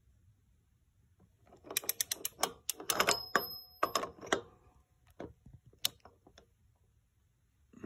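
Ratcheting wrench clicking in quick runs as the M8 motor sprocket shaft is turned by hand to read its runout, followed by a few single clicks.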